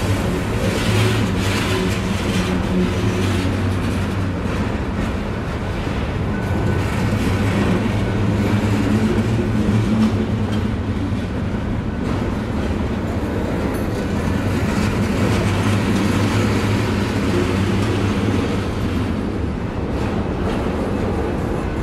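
Freight train of flatcars carrying intermodal garbage containers rolling past, its steel wheels on the rails making a steady low rumble.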